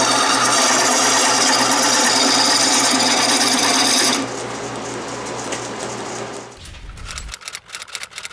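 A wood lathe spinning a wooden mallet handle while a gouge cuts into it, a steady dense scraping over the lathe's motor hum. About four seconds in the cut stops and the sound drops away, and near the end come rapid typewriter key clicks.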